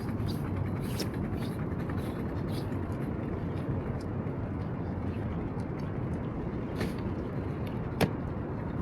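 Steady low rumble of seaside ambience, the swell and wind at the pier, with a few light clicks and one sharp click about eight seconds in.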